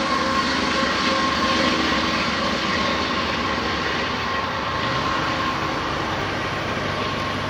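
Approaching intermodal freight train led by Canadian Pacific diesel locomotives running under power: a steady engine drone and rolling rumble. The low drone grows stronger about five seconds in as the locomotives close in.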